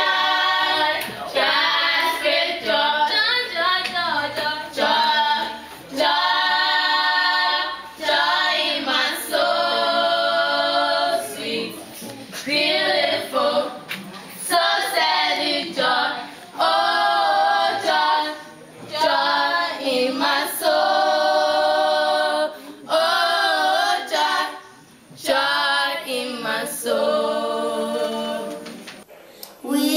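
A group of students singing together a cappella, in phrases of a second or two with short breaks between them.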